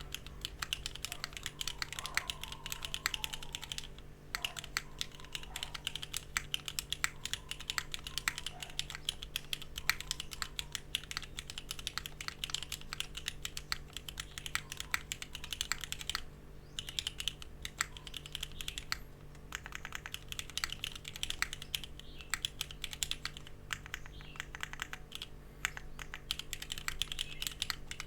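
Fast, continuous typing on a Sagrada gasket-mount mechanical keyboard with Cherry Black linear switches and GMK keycaps, a dense run of keystroke clacks that pauses briefly about 16 seconds in.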